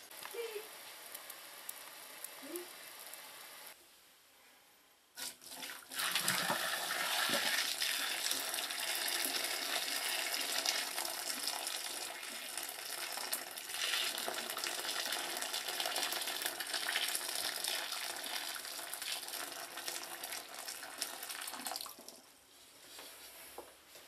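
A pot of water boiling on a stove, then, from about six seconds in, boiling water poured from the pot into a bathtub, splashing and gushing toward the drain for about sixteen seconds before it trails off. The water is poured to flush a slow, clogged drain.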